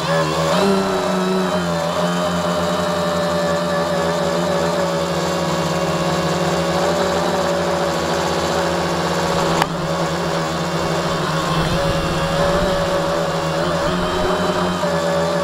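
Tricopter's three electric motors and propellers whining steadily through the onboard camera's microphone, their pitches wavering slightly as the throttle shifts, with one sharp tick about ten seconds in.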